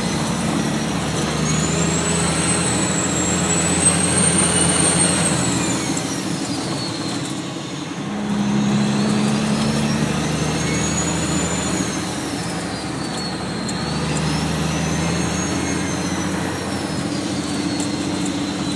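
Truck engine running under way, heard from inside the cab, its note shifting up and down. A high whine rises and falls three times.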